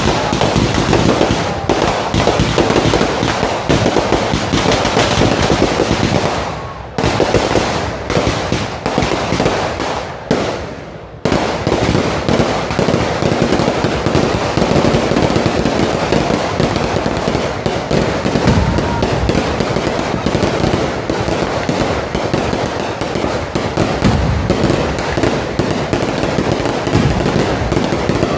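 Strings of firecrackers hung beneath a hot-air balloon going off in rapid, continuous crackling. The crackling drops off briefly about seven and eleven seconds in.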